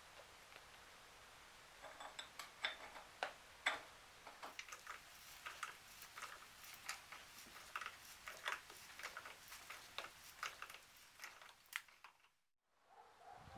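A run of light, irregular clicks and taps, a few a second, starting about two seconds in and cutting off shortly before the end.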